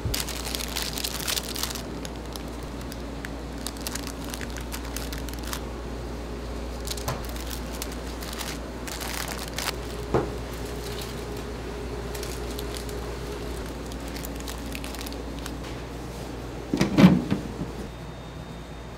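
Crinkling and rustling of something being handled in a bakery kitchen, in short scattered bursts over a steady low hum, with one louder knock near the end.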